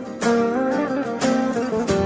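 Instrumental intro of a karaoke backing track: a melody on plucked strings over held notes, with a fresh plucked attack about a quarter-second in and again just past a second.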